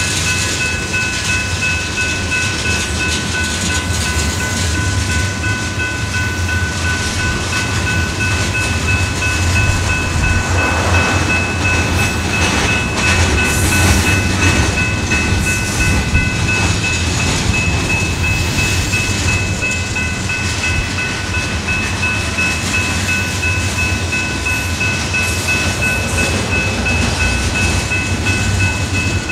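Union Pacific mixed freight train's covered hopper cars rolling past: a steady low rumble and wheel-on-rail noise, with a steady high whine of several tones over it. The noise swells a little about halfway through.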